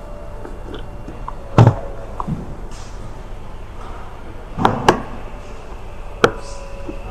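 Sharp plastic clicks of a car's push-release fuel filler flap being pressed open and pushed shut. There are about five clicks, with a close double click about two-thirds of the way in.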